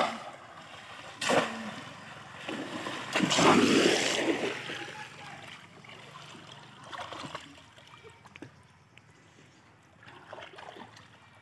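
Splashing and sloshing in shallow water as bamboo cone fish traps are thrust down into it by people wading. There is a sharp splash about a second in and a bigger, longer one around three to four seconds in, then quieter sloshing that dies down.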